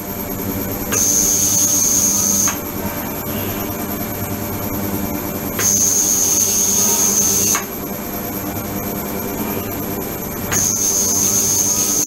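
Ultrasonic cleaning tank running with its transducer boxes submerged in circulating water: a steady hum and hiss, with a high-pitched tone and extra hiss switching on three times for about two seconds each.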